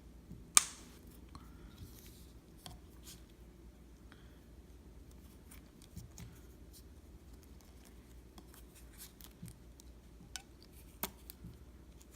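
Faint handling sounds of hands wrapping a thin rubber slingshot band around a slingshot frame: scattered small clicks and rustles, with one sharp click about half a second in.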